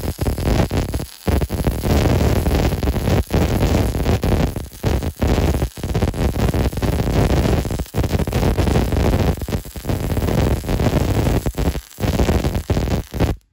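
MIG welding arc on 1/8-inch steel plate, running Select Arc 70C-6 LS metal-cored wire: a loud, steady hiss with brief dropouts now and then. The arc cuts off near the end as the bead is finished.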